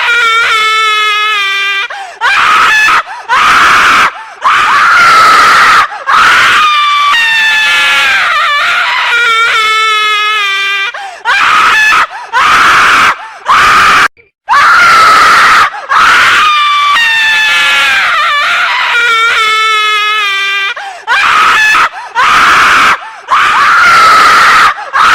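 A woman screaming loudly and repeatedly: long, high screams with a wavering, falling pitch, broken by shorter screams and brief gaps. The same run of screams repeats about every ten seconds.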